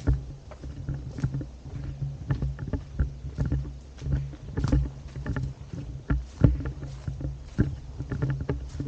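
Low rumble with many irregular knocks and clicks on the microphone, the handling noise of a hand-held camera carried on a walk.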